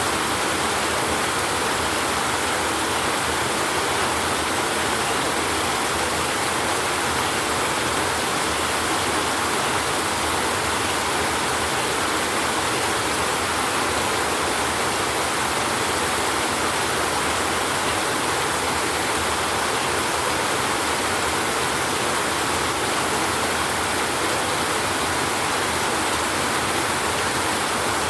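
Steady rain, an even unbroken hiss with no thunder claps.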